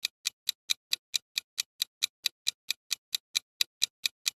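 Countdown-timer ticking sound effect: a quick, even clock tick, about four and a half ticks a second, counting down the answer time.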